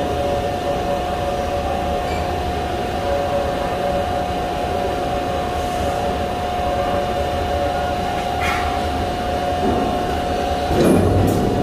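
Steady hum of heavy shop machinery, with two steady high tones over a low drone. Near the end a short burst of clatter breaks in.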